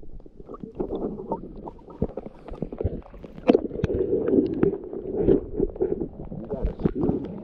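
Muffled water sloshing and knocking, heard through a camera submerged in a shallow crawdad pool, with many sharp clicks and knocks throughout as a dip net is swept through the water near the lens.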